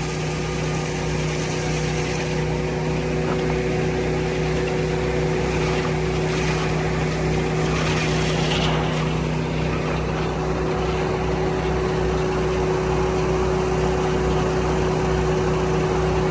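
Portable sawmill's engine running steadily with a constant low hum, no change in speed.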